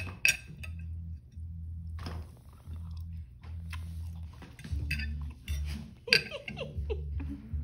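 A goldendoodle's claws clicking and tapping on a hardwood floor as it moves about sniffing after a fly, with sharp clicks scattered through and a low hum coming and going underneath.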